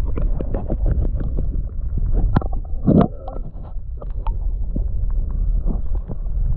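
Water sloshing and splashing close to the microphone as a rainbow trout is let go in a stream by hand, with many small knocks and a louder splash about three seconds in.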